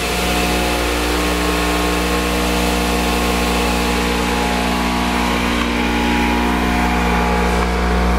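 Velati Dick KL-300 knife and mincer-plate grinder running free: its electric motor and grinding wheels spin at a steady speed with no blade on them. The result is a constant hum with a few steady tones.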